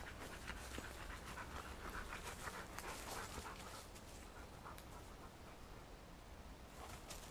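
A hunting dog panting quickly close by, the breaths densest in the first few seconds, with footsteps through dry leaf litter.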